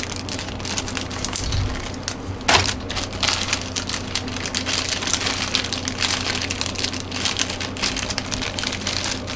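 Crinkling and rustling of small clear plastic zip-lock bags of metal mounting hardware being handled and opened, with a run of quick crackles.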